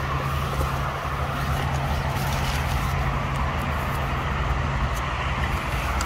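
Steady motor-vehicle engine noise with a constant low hum.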